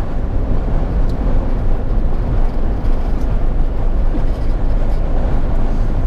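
Steady highway road noise heard inside the cabin of a hard-top Jeep Wrangler Unlimited: an even, low tyre-and-wind rumble.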